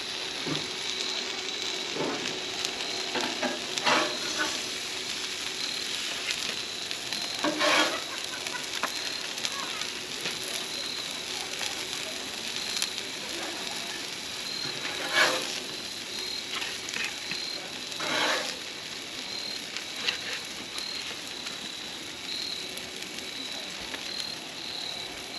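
Turkey smash burgers sizzling steadily on a Blackstone flat-top griddle, with a metal spatula scraping across the steel plate about four times as the cheese-topped patties are lifted off.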